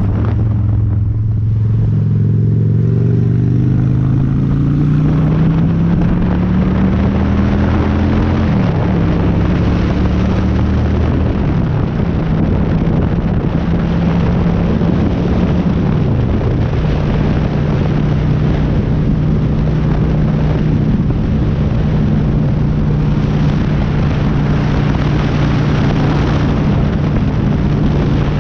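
Honda Shadow V-twin motorcycle engine accelerating through the gears: the engine note climbs, drops back at each upshift, then holds steady at cruising speed. Wind noise on the helmet-mounted microphone throughout.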